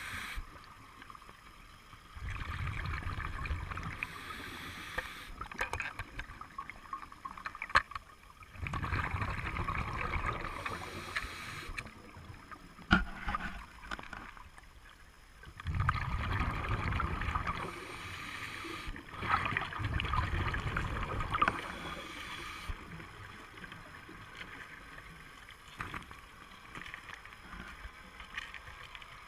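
Underwater recording of a scuba diver breathing: bursts of bubbling, rumbling exhaust bubbles lasting two to three seconds, about four times, with quieter stretches and a few sharp clicks between.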